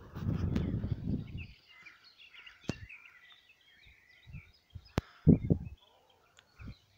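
Small birds chirping and singing. A low rumbling noise stops about a second and a half in, and a few sharp clicks and short low thumps follow.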